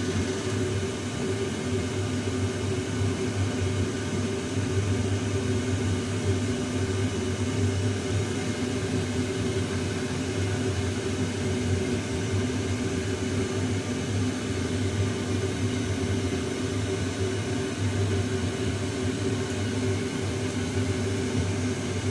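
Waste-oil boiler running: a steady, even mechanical hum from its burner and fans.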